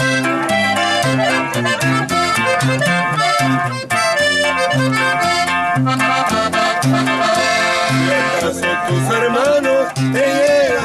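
Norteño trio playing live: a Gabbanelli button accordion carries the melody over a strummed guitar and a plucked upright bass (tololoche) keeping a steady bass line. Near the end, a man starts singing.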